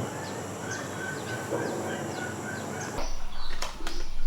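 Forest ambience: a bird repeating short falling chirps, a few a second, over a steady high hiss. About three seconds in it cuts suddenly to a louder sound with sharp knocks.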